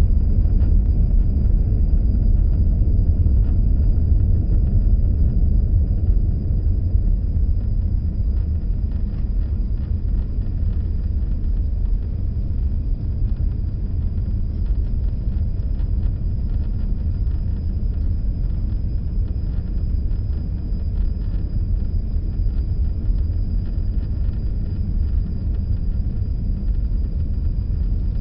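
Steady low rumble of a moving car, road and engine noise with no change in speed, and a faint thin high whine running over it.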